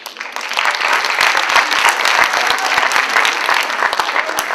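Audience applauding, many hands clapping at once; it starts suddenly, swells within the first second to a steady loud clapping, and eases slightly near the end.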